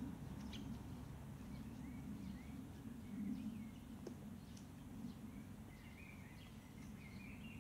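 Quiet open-air ambience: a steady low background rumble with scattered short bird chirps and a few faint clicks.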